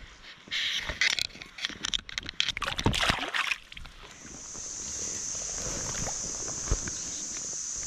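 Water splashing and sloshing with sharp clicks as a small fish is unhooked at the surface and let go, for about three and a half seconds. After that a steady high-pitched buzz sets in.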